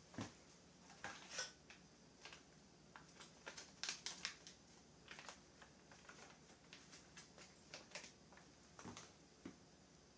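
Faint, irregular light clicks and taps of small parts and tools being handled on a workbench.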